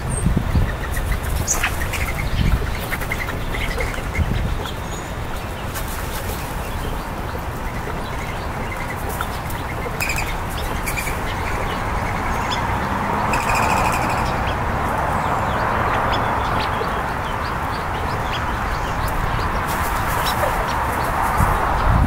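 California quail pecking birdseed off a wooden picnic table, a scatter of short sharp taps. Short bird chirps come now and then over a steady low rumble.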